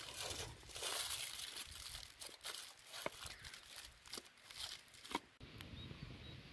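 Aluminium foil crinkling and rustling with small sharp crackles as hands fold and press it tight around a piece of chicken. It stops abruptly about five seconds in, leaving a faint low rumble.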